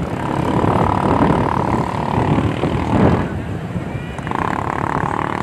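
Wind rumbling on the microphone over surf on a busy beach, with a steady high-pitched whine that drops out about halfway through and returns near the end.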